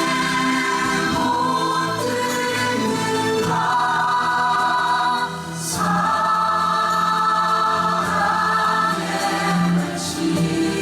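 Stage-musical music with a choir-like ensemble singing long held chords over the accompaniment, the harmony changing every second or two, with two short cymbal-like crashes.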